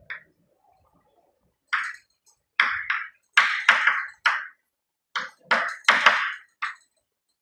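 Chalk writing on a blackboard: a run of short, separate scratching strokes as a word is written.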